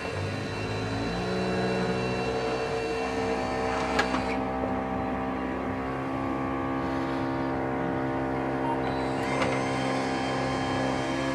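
Small electric motor running a threaded spindle drive with brass nuts on a scale RC hook-lift chassis, a steady whine. There are two sharp clicks, about four seconds in and near the end.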